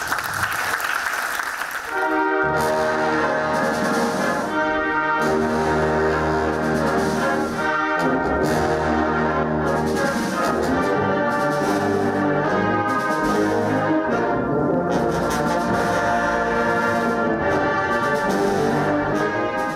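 A brass band plays sustained full chords, with cornets and trumpets on top, trombones and tubas underneath and a steady bass line. The music starts about two seconds in, after a short spell of applause.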